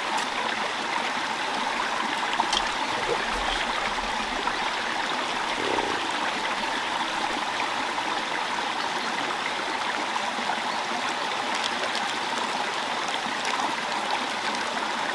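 Small stream running steadily, an even rushing and trickling of water, with a few faint clicks.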